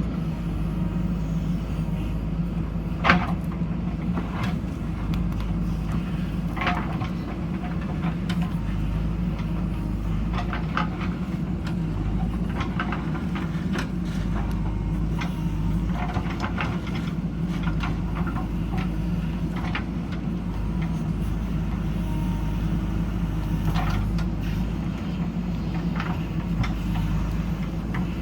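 JCB backhoe loader's diesel engine running steadily under work, with scattered sharp metallic clanks. The loudest clank comes about three seconds in.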